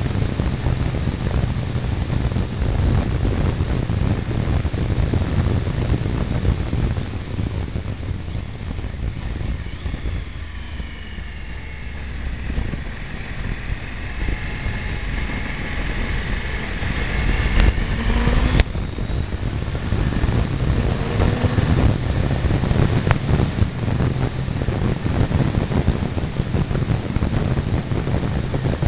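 Heavy wind noise on a motorcycle's mirror-mounted camera, with a Triumph Tiger 955i's three-cylinder engine faintly beneath it while riding downhill. The wind eases through a tight bend about halfway, and the engine note then rises as the bike pulls out of it.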